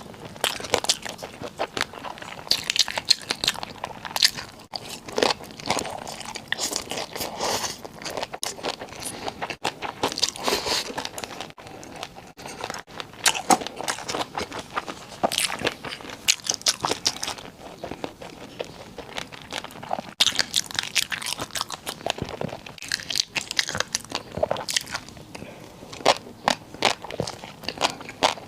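A person biting and chewing crunchy food close to the microphone: many crisp, irregular crunches in quick succession with short pauses between bites.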